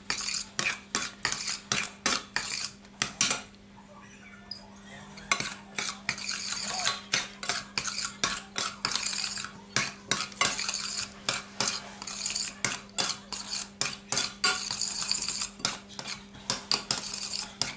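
Metal spoon stirring thick oat and blueberry porridge in a stainless steel pot, clinking and scraping against the pot's sides about two to three times a second, with a short pause about four seconds in. A faint steady hum runs underneath.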